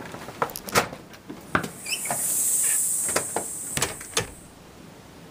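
A door being unlatched and swung open: a run of clicks and knocks from the handle and latch, a few brief squeaks, and a high hissing scrape as it opens.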